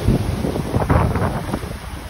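Shallow surf foaming and washing around a wader's legs, with wind buffeting the microphone; the wash eases a little toward the end.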